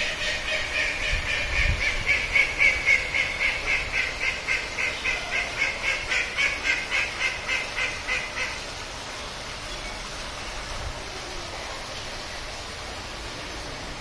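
Water birds calling in a fast, even series of nasal, quack-like calls, about four a second, which stops abruptly a little over halfway through. A faint, steady outdoor background follows.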